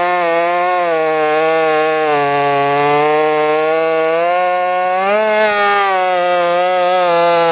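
Two-stroke chainsaw running at high revs, its pitch sagging about two seconds in and climbing back up about five seconds in.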